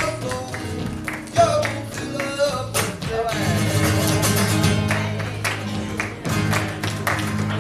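Live flamenco: acoustic guitar playing with a voice singing over it and hand-clapping (palmas) keeping the rhythm.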